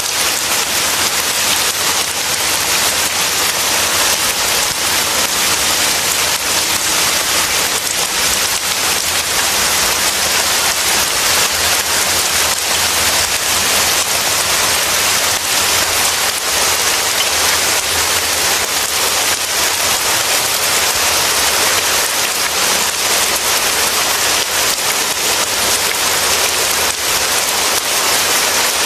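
Steady downpour of rain, a dense even hiss of falling drops.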